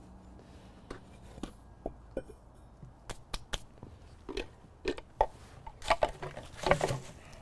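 Steel coring bits and drill bits being handled and set down on a concrete slab: scattered metallic clinks, knocks and scrapes, with a quick run of sharp clinks about three seconds in and a busier cluster near the end.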